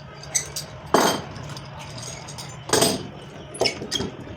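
Sharp knocks and clinks from woodworking on plywood, coming irregularly, the loudest near the three-second mark, over a steady low hum.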